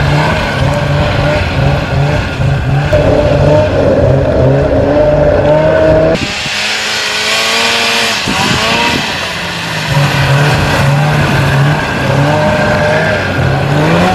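Arctic Cat Panther 570 snowmobile's two-stroke engine running hard while carving tight circles in snow, its pitch rising and falling with the throttle, with a sharp climb in revs near the end.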